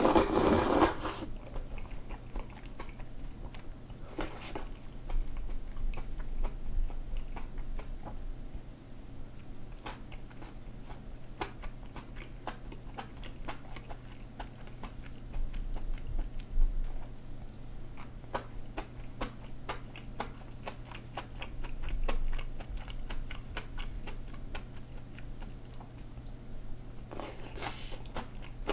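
Close-miked eating of soft, thick hand-made perilla-seed kalguksu noodles: a short slurp at the start, another brief one about four seconds in and one near the end, with many small wet chewing clicks between. The noodles are too short to slurp in one long pull.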